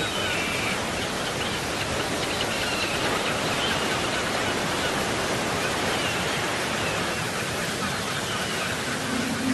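Whitewater rapids of the White Nile rushing steadily, a constant dense noise of churning river water.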